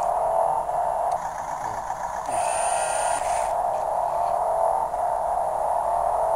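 Mould King 20014 brick-built RC Tiger tank running: its electric drive motors and gears whir under the engine sound from its built-in sound module's small speaker. A thin high whine comes in for about a second midway.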